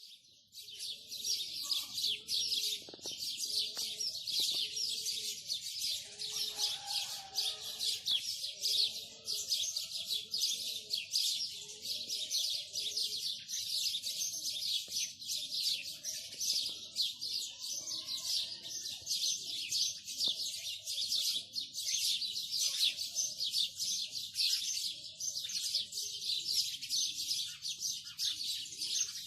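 Dense, continuous chorus of small birds chirping and twittering, with a fainter lower call repeating about once a second in the first half.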